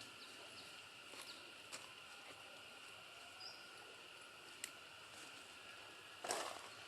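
Quiet outdoor ambience: a steady insect drone with a few faint high chirps and light ticks, then a louder rustle near the end.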